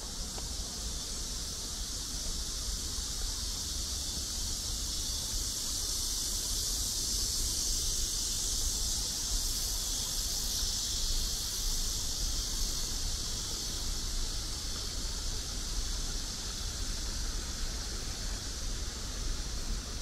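A chorus of insects drones high and steady, swelling around the middle, over a constant low rumble.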